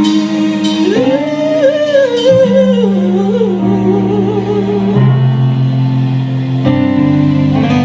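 Live band playing a slow ballad: sustained chords, with a wordless, wavering melodic run over them for the first few seconds.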